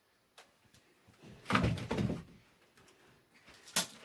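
A loud thud-like knock about a second and a half in, and a single sharp click near the end.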